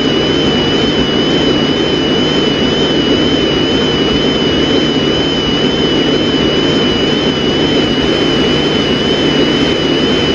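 Steady, loud rushing noise of a dead-air broadcast signal, with a low hum and two thin high whines that waver slightly. The sound does not change at all.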